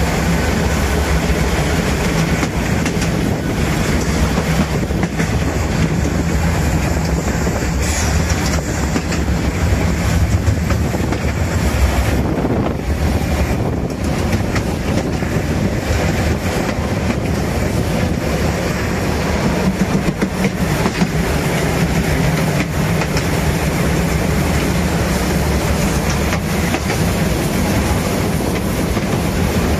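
Metre-gauge steam locomotive 99 7240-7, a 2-10-2 tank engine, running along the track: a steady noise of wheels and running gear with frequent clicks from the rails.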